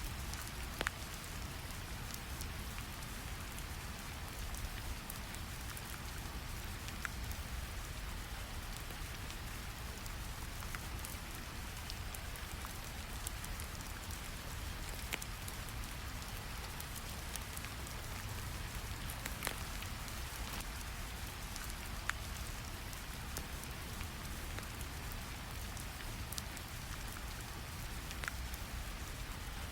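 Steady rain ambience layered over a low, even brown-noise rumble, with a handful of sharp pops from a crackling fire scattered through it.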